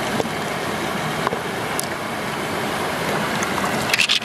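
Steady rush of running water, with a few small clicks and a cluster of wet clicks near the end as pearls are picked out of an opened freshwater mussel.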